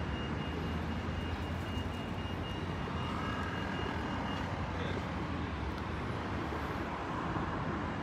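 Steady hum of road traffic, with a faint high steady tone that stops about halfway through.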